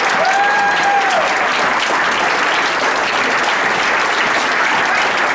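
A crowd of diners applauding steadily, with one held cheer in the first second.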